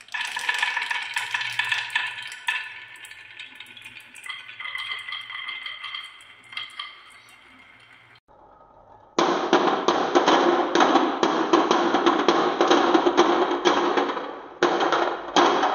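Many glass marbles rolling and clicking around a wooden spiral track, with ringing clinks. After a short break, a dense, steady clatter of marbles rolling down a wavy wooden track and dropping into a toy truck's bed, which stops suddenly near the end.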